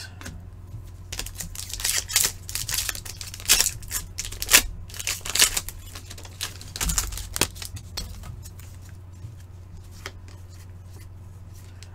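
Hockey card pack's foil wrapper being torn open and the cards handled: a run of crinkly rips and rustles, busiest in the first seven seconds or so and quieter after, over a steady low electrical hum.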